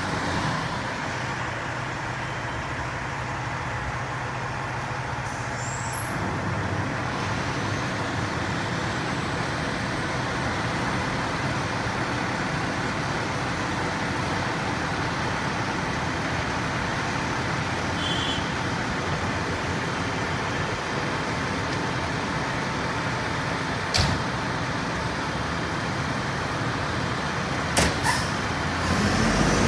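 Aerial ladder fire truck's diesel engine idling steadily, with a few sharp clacks near the end and the engine growing louder in the last second as the truck gets ready to roll out.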